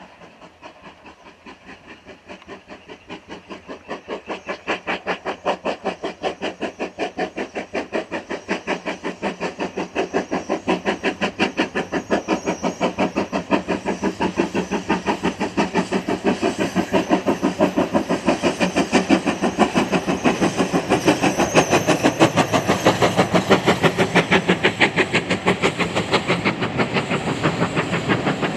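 Steam locomotive 9351 approaching under power, its exhaust beating fast and evenly. The beats grow steadily louder until about two-thirds through, then hold.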